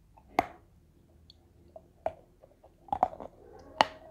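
Teeth biting into and crunching a block of edible chalk coated in wet red clay. There is a sharp crunch about half a second in, then several more crunches as it is chewed.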